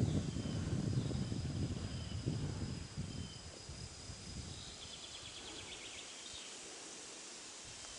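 Wind buffeting the microphone fades away over the first few seconds, leaving quiet meadow and forest ambience: a thin steady high insect buzz, scattered short bird calls and a brief bird trill about five seconds in.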